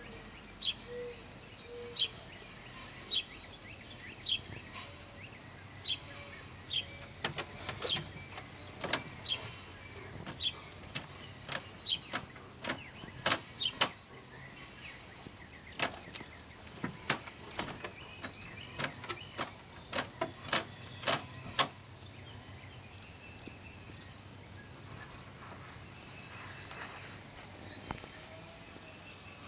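Scattered rustles and snaps of leaves and stems as a dachshund pushes through a flower bed, thickest in the middle and dying away over the last several seconds. A short bird chirp repeats about once a second near the start.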